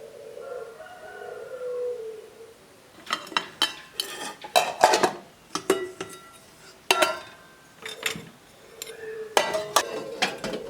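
Kitchenware clattering: a run of sharp clinks and knocks of utensils against dishes or pans from about three seconds in, loudest in three clusters. A faint wavering tone sounds before and after them.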